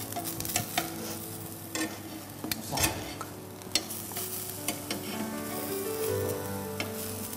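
Eggplant slices sizzling as they fry in a pan, with the sharp clicks of metal tongs against the pan now and then as the slices are turned.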